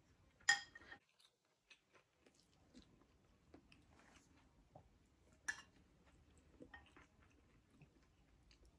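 Faint chewing of a spoonful of cooked quinoa, with scattered small mouth noises and two sharper clicks, one about half a second in and one about five and a half seconds in, typical of a metal spoon touching a ceramic bowl.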